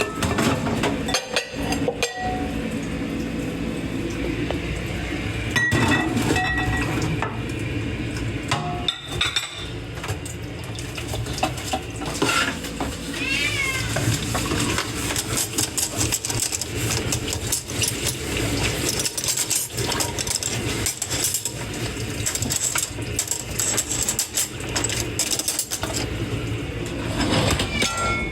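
Dishes and cutlery being washed by hand in a kitchen sink, clinking and clattering against each other throughout. A cat meows faintly in the background about halfway through.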